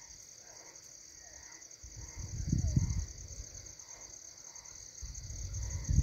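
Steady high-pitched insect chorus with a fine, rapid pulse. A low rumble swells about two seconds in and again near the end.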